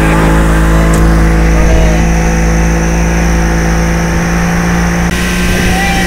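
Speedboat outboard motor running at a steady high speed, a constant loud drone, with the rush of the boat's wake.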